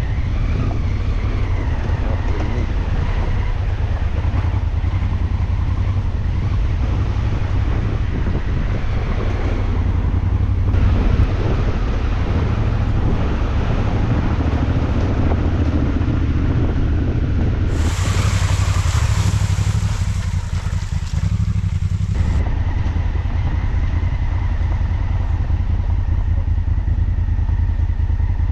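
Enduro motorcycle running under way, recorded by an onboard camera, with heavy wind rumble on the microphone. A stretch of louder hiss lasts about four seconds, about two-thirds of the way through.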